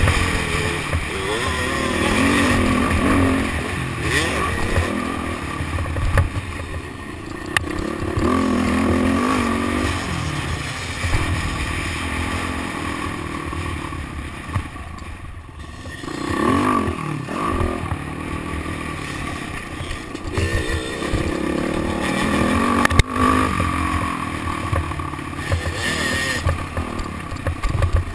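Motocross dirt bike engine revving up and down as it is ridden around the track, its pitch rising and falling again and again, with a few sharp knocks along the way.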